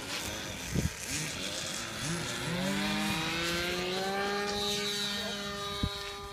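O.S. .46 two-stroke glow engine of a radio-control model plane throttling up for takeoff: about two seconds in its note rises in pitch, then it holds steady at high revs. There is a short click about a second in and a sharp knock near the end.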